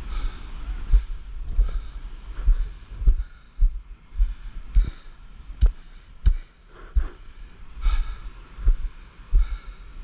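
Walking footsteps jolting a body-worn camera: dull low thumps at walking pace, about every two-thirds of a second, with faint rustling between them.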